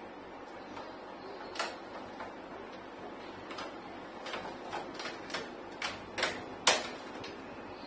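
Plastic clicking and knocking as the mesh air filter is slid and snapped back into a Sharp split air conditioner's indoor unit. A single click comes first, then a run of sharp clicks several a second, the loudest near the end.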